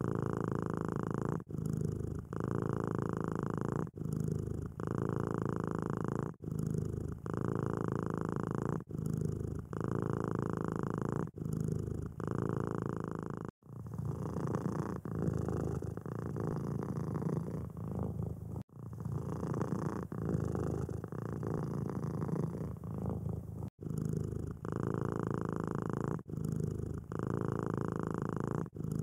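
Domestic cat purring steadily close up, the purr pulsing with its breathing, with a short break about every second and a quarter. It cuts off sharply three times and resumes with a different tone.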